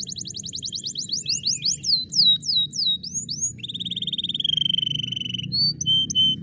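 Domestic canary singing: a rapid high trill of repeated notes, then slower swooping notes, a long lower rolling note, and a few short whistles near the end.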